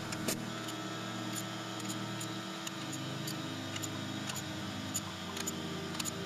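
Sharp metallic ticks, irregular at about one or two a second, from a hand ratchet wrench being worked on the rocker-arm and cylinder-head nuts, over a steady low hum.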